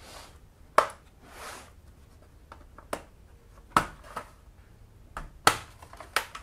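Plastic snap clips of an Asus laptop's palm rest popping loose as a small flat metal pry tool is worked along the seam between palm rest and bottom case: about five sharp clicks, irregularly spaced, with a brief scrape of the tool early on.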